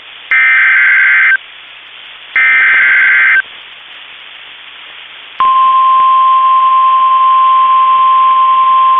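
NOAA Weather Radio Emergency Alert System signal: the last two of the three one-second bursts of SAME digital header data, a second apart. About five seconds in, the single steady warning alarm tone starts and holds, announcing a tornado warning.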